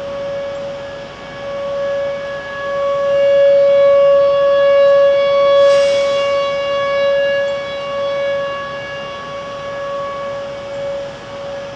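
Outdoor tornado warning siren sounding a steady, single-pitched wail that swells louder through the middle and fades back, warning of a tornado. A brief rush of noise cuts in about halfway through.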